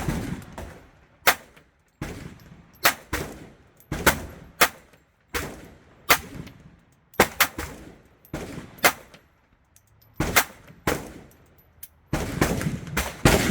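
A string of gunshots, roughly one every second, each with a short echo, growing denser with overlapping shots near the end.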